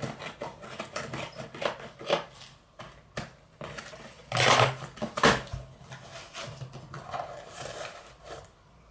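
Cardboard shipping package being opened and handled by hand: scattered taps, scrapes and rustles, with two louder rustling rips a little past halfway through.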